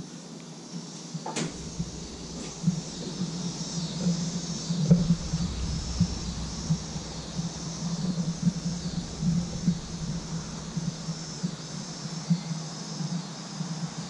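A sliding patio door clicks open about a second and a half in. Then come low, irregular steps and handling thumps, over a faint high chirring in the background.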